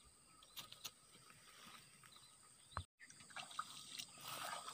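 Very faint water sloshing and trickling as a person wades through a shallow stream, starting about three seconds in after a brief dropout to silence; before that, near silence with a few faint ticks.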